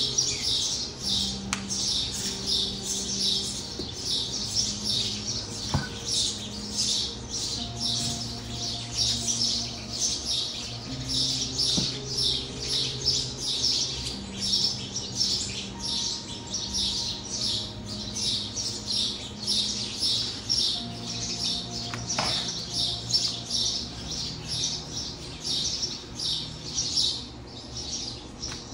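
Continuous rhythmic high-pitched chirping, about two to three chirps a second, with faint sustained low tones beneath.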